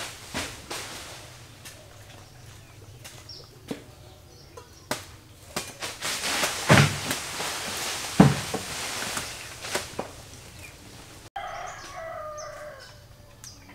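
Scattered knocks and cracks with a stretch of rustling palm fronds from a man cutting at the crown of a palm tree; the two loudest knocks come about seven and eight seconds in. Near the end a rooster crows once, its call falling in pitch, with small birds chirping.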